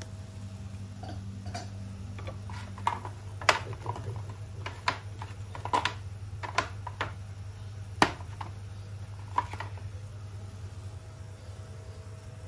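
About a dozen irregular sharp clicks and taps of plastic spice jars and shaker containers being handled, the two loudest about three and a half and eight seconds in. A steady low hum sits underneath.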